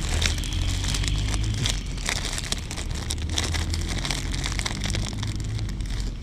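A plastic bag of soft-plastic grub baits crinkling and rustling as it is handled, with many small irregular crackles over a low rumble.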